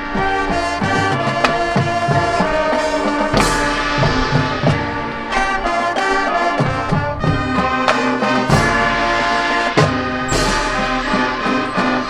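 Marching band playing: sustained brass chords from trumpets and trombones over frequent drum hits.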